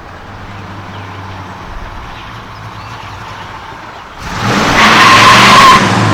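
A 1970 Dodge Coronet's 440 cubic-inch V8 with dual four-barrel carburettors idling steadily. About four seconds in it is suddenly given full throttle and the car launches hard, its tyres squealing loudly for about two seconds.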